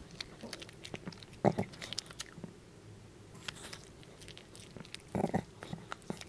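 A small dog chewing a homemade duck neck bone treat close to the microphone: irregular bites and crunches of bone, the loudest a little over a second in and a quick run of crunches about five seconds in.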